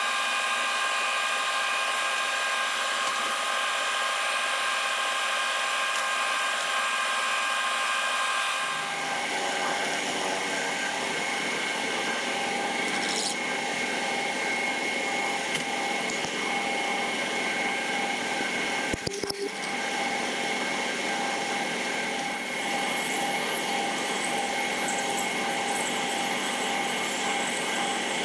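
Milling machine drilling out a hole in a metal block with twist drills under flood coolant: the spindle runs with a steady whine while the drill cuts and throws swarf. The hole is being opened up toward about 0.87 inch before boring. The sound changes about nine seconds in and breaks briefly about two-thirds of the way through.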